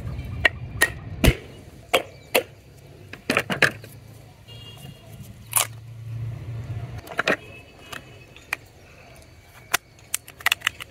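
Sharp, irregular knocks on the hard shell of a dry coconut as it is struck to crack it open, about a dozen blows with the loudest about a second in. A quick cluster of knocks comes near the end.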